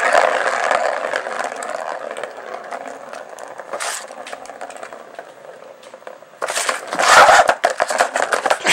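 A plastic ball rolling fast around the circular track of a cat scratcher toy, a steady whir that slowly fades. About six and a half seconds in it speeds up again with sharp knocks and rattles as the cat swats it.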